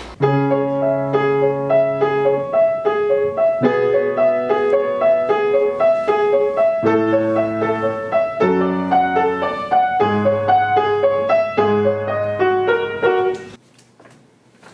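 Piano music: a quick repeating pattern of notes over held bass notes, cutting off suddenly near the end.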